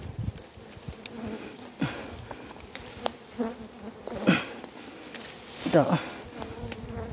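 Dwarf honey bees (ong ruồi) buzzing around their nest as it is being cut, stirred up and defending it. A steady buzz runs throughout, and three times a bee passes close, its buzz sweeping down in pitch.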